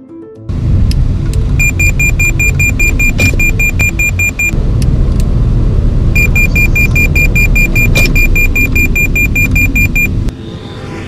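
Cabin noise of a fourth-generation Toyota Yaris at test speed, a loud steady rumble of tyres and engine, with the car's forward-collision warning beeping rapidly and high, about five beeps a second, in two runs as the automatic emergency braking closes on a car ahead. The cabin sound cuts off suddenly near the end.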